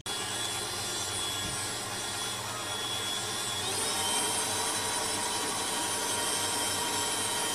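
Electric stand mixer running at high speed, its flat beater churning thick choux pastry dough with eggs in a steel bowl: a steady motor noise with a high whine that rises a little in pitch about four seconds in.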